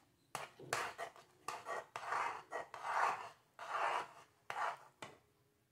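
Metal spoon scraping the bottom and sides of a metal pot while stirring thick, bubbling natilla custard, in rhythmic strokes about two a second that stop about five seconds in. The steady scraping is the constant stirring that keeps the thickening cornstarch and milk from catching and burning.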